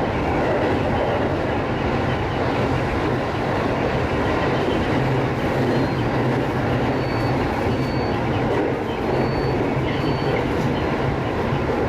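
JR 205-series electric multiple unit running along the line, heard from the front of the train: a steady rumble of wheels on rail with a low motor hum. A few faint, brief high-pitched squeals come through about halfway.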